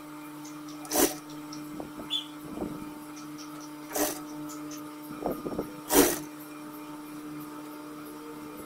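JUKI industrial sewing machine's motor humming steadily while idle. The hum is broken by three short, loud bursts of noise about one, four and six seconds in.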